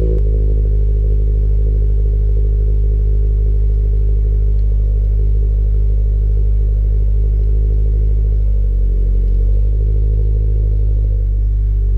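Subaru BRZ's 2.0-litre flat-four boxer engine running at low revs, a steady drone that shifts a little in pitch in the last few seconds.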